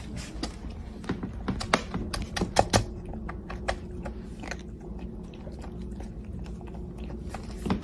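Kitten crunching dry kibble, a run of irregular crisp clicks.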